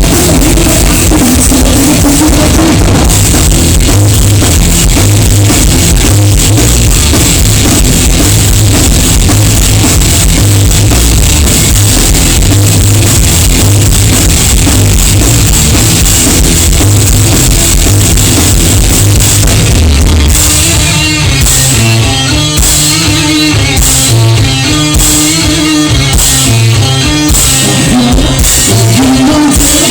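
Live rock band playing loud, with distorted guitars, bass and a drum kit in a dense wall of sound. About two-thirds of the way through, it drops into a sparser, choppy section with drum and cymbal hits about once a second.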